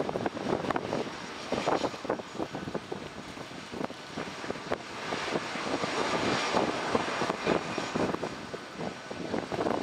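Boeing C-17 Globemaster III's four Pratt & Whitney F117 turbofans running at taxi power: a continuous jet rumble and hiss that grows louder a few seconds in, then eases a little near the end.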